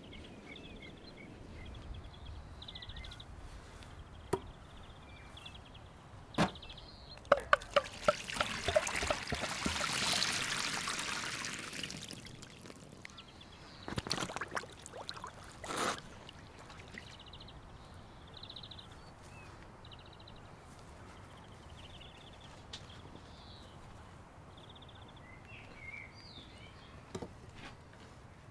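Liquid being poured, a hiss that swells and fades over about four seconds in the middle, after a few sharp clicks and knocks. Two more knocks follow shortly after.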